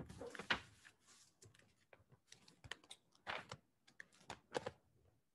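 Faint, irregular clicking of typing on a computer keyboard, with louder strokes about half a second in, past three seconds and again past four and a half seconds.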